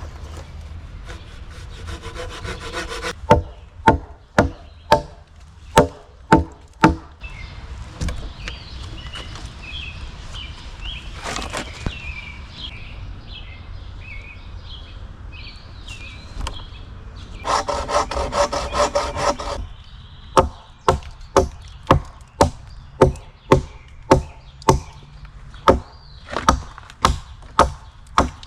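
Hand-tool work on a log: runs of sharp, evenly spaced wooden strokes, about two a second, stopping for a quieter stretch in the middle and starting again in the second half.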